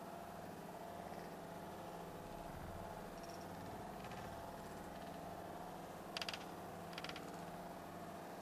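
Arduino Rubik's cube robot's motors: a steady faint electrical hum with a thin whine, broken by two short high-pitched whirring bursts about six and seven seconds in.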